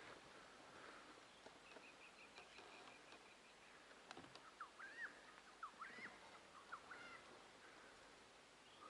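Faint bird calls against a quiet background: a short run of quick, evenly repeated high notes about two seconds in, then a string of looping, up-and-down chirps from about the middle.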